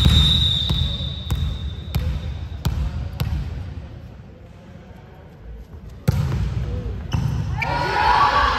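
Volleyball hall sounds: a high whistle held for about two seconds at the start, over a ball bouncing on the wooden court floor every half second or so. After a quieter stretch the sound rises suddenly about six seconds in, and the players shout and call out near the end.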